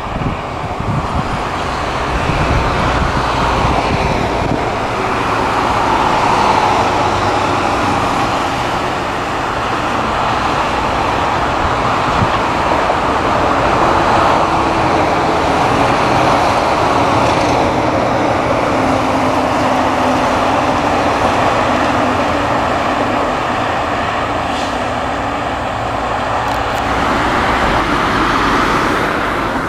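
Diesel railcar engine running under power as the single-car train draws away along the track, a steady mechanical noise whose engine note shifts now and then.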